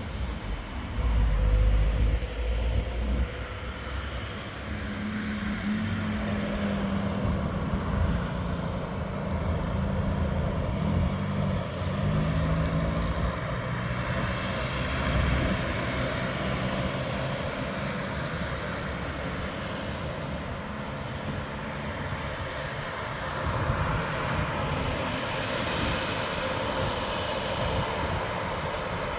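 Twin turboprop engines of a distant Fokker 50 running with a steady propeller drone, its pitch wavering for a stretch several seconds in. A brief low rumble near the start.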